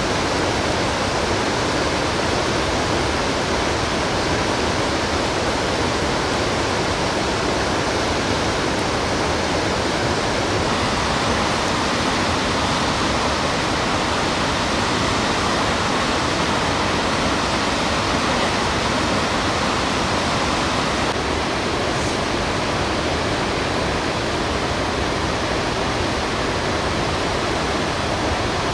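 A fast mountain river rushing over rocky rapids, a steady, unbroken noise of whitewater.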